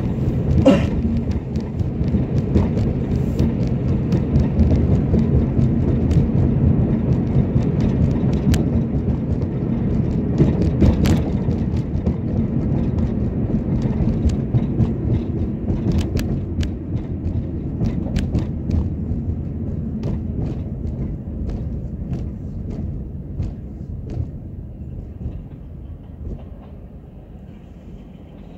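Car road noise heard from inside the cabin: a steady low rumble of tyres on cracked concrete pavement, with frequent short knocks and rattles. It grows fainter over the last several seconds as the car slows toward a stop.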